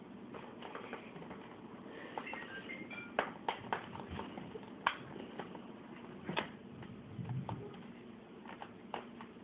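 Scissors snipping at a cardboard toy box, in scattered sharp clicks and cuts.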